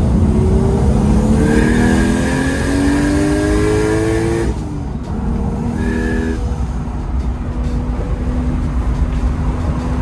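Toyota Chaser's turbocharged 1JZ-GTE straight-six accelerating, heard from inside the cabin. Its pitch rises for about four and a half seconds with a steady high whistle over it, then drops abruptly and settles into a steady cruise.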